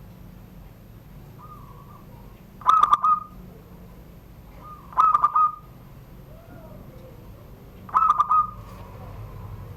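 Zebra dove (perkutut) singing: three short rolling coo phrases about two and a half seconds apart, of the song type keepers call 'surung gdor'. Fainter bird calls are heard between the phrases.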